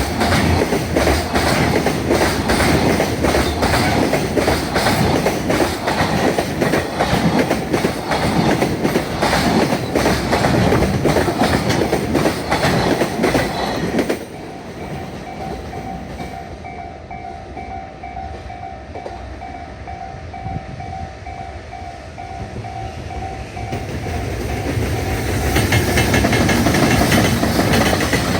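Freight train passing at speed, its wheels clattering rapidly over the rail joints. About halfway through the noise drops away suddenly, leaving a level-crossing warning bell ringing in an even repeating pattern. Near the end the rumble of another train swells up again.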